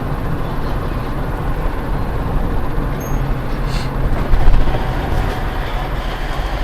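Vehicle running on the road, heard from inside the cab: a steady engine and road rumble with a brief louder bump about four and a half seconds in.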